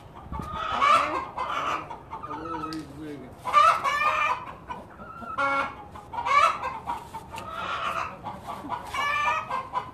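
Chickens clucking and calling, in repeated bursts every couple of seconds.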